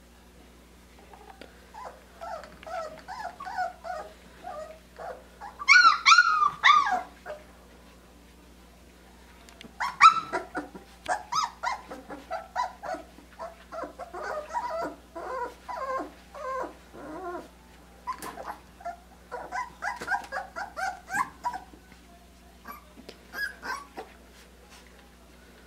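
Australian Shepherd puppies, under four weeks old, whimpering and yipping in quick runs of short high-pitched cries, with a loud squeal about six seconds in and another sharp cry about ten seconds in.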